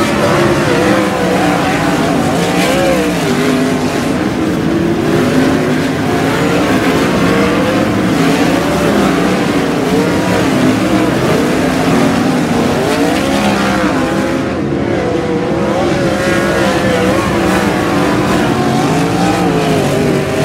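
A pack of 360 sprint cars racing on a dirt oval, several 360-cubic-inch V8 engines running hard at once, their pitch constantly rising and falling as the cars lap past.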